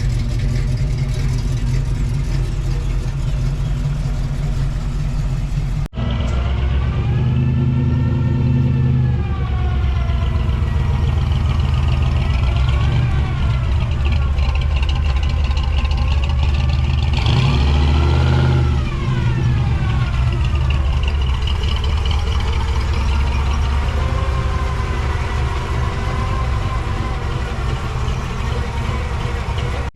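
Car engine running with a low rumble, then, after a brief cut about six seconds in, its pitch rising and falling several times as it is revved or driven.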